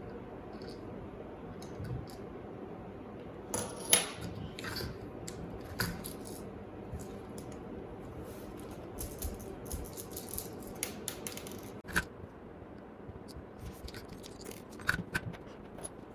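Scattered small clicks, taps and scrapes of keyboard parts being handled as the PCB and plate assembly is seated in the case and screwed down, with a louder knock about four seconds in and another near twelve seconds, over a low steady hiss.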